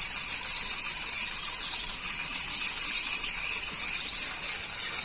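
Steady riverside ambience: an even, unbroken hiss with a constant high-pitched band and no distinct events.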